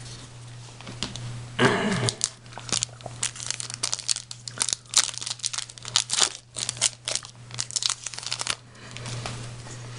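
Foil Yu-Gi-Oh booster pack wrapper crinkling as it is torn open and handled: a dense run of sharp crackles and crinkles from about two and a half seconds in until near the end, over a steady low hum.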